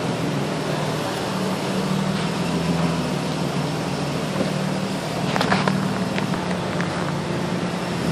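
2003 Nissan Maxima's 3.5-litre V6 running steadily, with a quick cluster of sharp pops and creaks a little past halfway through: the creak/pop noise the car makes when turning.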